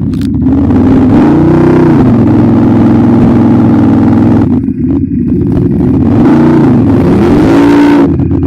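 ATV engine running hard and being revved, its pitch climbing and falling twice, with a brief drop in power about halfway through.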